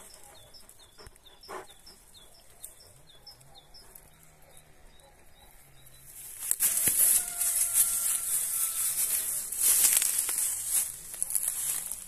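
A small songbird sings a series of about a dozen short, high falling notes, about four a second, over the first three seconds. About halfway through, a loud rustling hiss of dry reeds and stems sets in and lasts about five seconds.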